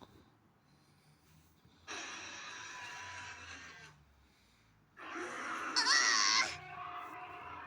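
Two cartoon creature vocal sound effects, one after the other. The first is a hissy, breathy sound lasting about two seconds. After a second's gap comes a louder one, about two and a half seconds long, with a wavering high-pitched cry.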